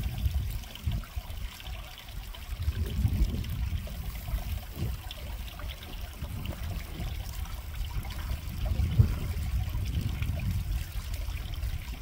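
Jindo dog lapping and splashing muddy water in a rice-paddy puddle, over a low, uneven rumble.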